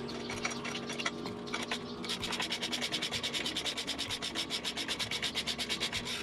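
A hand tool working on a motorcycle nut, scraping irregularly at first, then settling about two seconds in into rapid, even rasping strokes of about ten a second.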